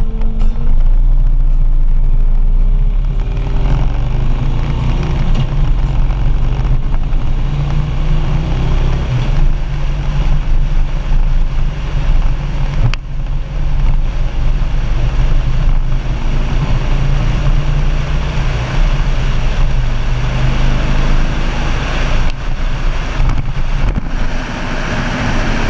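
Harley-Davidson Street Glide's V-twin engine running steadily under way, with a constant rush of wind, heard from behind the windshield.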